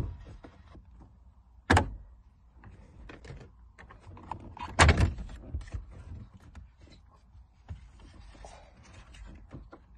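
Plastic dash bezel and factory radio of a 2011 Ford Mustang being pried out of the dash by hand: three sharp snaps as the retaining clips pop loose, at the start, near two seconds in, and the loudest about five seconds in, with softer plastic clicks and knocks in between.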